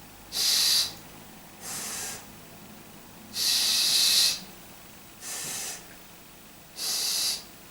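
A man's voice making the 's' consonant on its own: five separate hisses with short pauses between them. They alternate louder and softer, and the third, in the middle, is the longest and loudest. This is a contrast between a sharper and a softer S.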